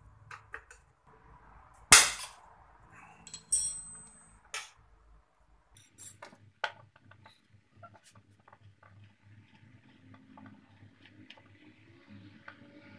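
Metal hand tools being handled and set down. A sharp metallic clank about two seconds in is the loudest sound, followed by a ringing clink a second and a half later, then scattered lighter clicks and taps.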